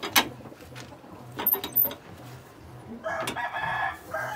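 A rooster crows once, about three seconds in, a held call lasting about a second. Earlier there are a few sharp clacks from the metal tortilla press being opened and shut, the loudest just at the start.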